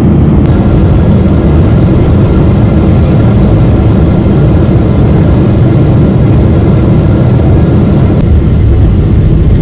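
Steady cabin noise of a Boeing 777-300ER on its descent, heard from a window seat beside its GE90 engine: a loud, even low rumble with faint steady whine tones. About 8 seconds in, a thin high whine joins.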